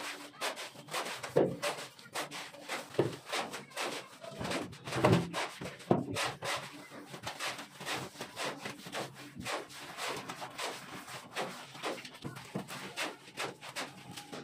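Hand float rubbed over fresh cement-and-sand plaster on a concrete ceiling slab: quick repeated scraping strokes, several a second, a few of them louder in the first half.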